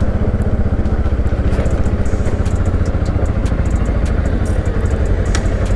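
Motorcycle engine running steadily while riding, with an even low firing rhythm.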